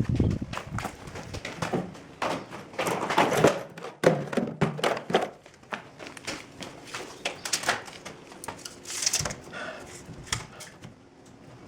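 Irregular knocks, taps and clatters of hand work in a small, boxy room, with no steady machine sound.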